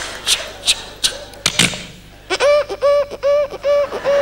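A comedian making horror-film sound effects with his mouth into a handheld microphone. First comes a rhythmic run of whispered 'ch-ch' hisses with a sharp pop about a second and a half in. Then a quick string of short, high, same-pitched voiced notes, about four a second.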